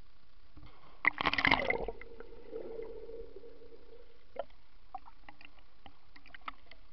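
A person jumping feet-first into a swimming pool: a loud splash about a second in, followed by muffled underwater bubbling for a couple of seconds, then a few small splashes and drips as the swimmer comes up.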